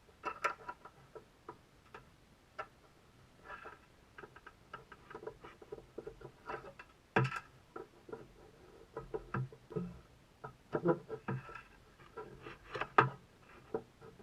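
Irregular light clicks and knocks from objects being handled and set down, with louder knocks about seven seconds in and again near the end.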